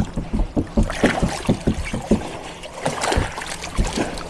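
A muddy shoe being scrubbed and rinsed in river water over the side of a boat: irregular splashing and sloshing with short knocks and thumps.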